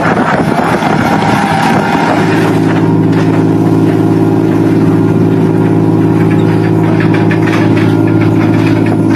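Wind noise, then from about two seconds in a boat engine running with a steady, unchanging hum.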